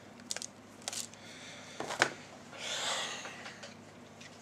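Light plastic clicks and knocks of K'NEX rods and connectors being handled, with a sharper click about two seconds in. A short breathy exhale follows just after.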